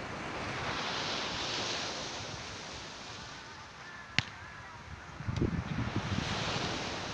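A single sharp smack of a volleyball struck by a player's hands about four seconds in, over a steady outdoor rushing noise that swells and fades twice.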